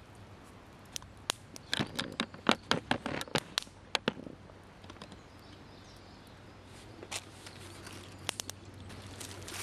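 A quick run of about a dozen sharp clicks and light knocks, then a few more scattered ones near the end, as of hard objects being handled and set down.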